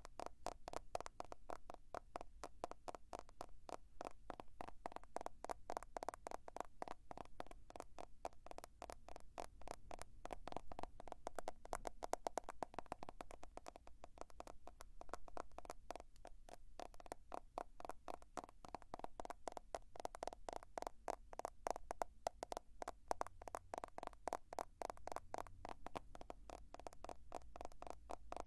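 Fingers tapping rapidly on a smartphone, a fast stream of many small taps a second that keeps going with slight swells in loudness.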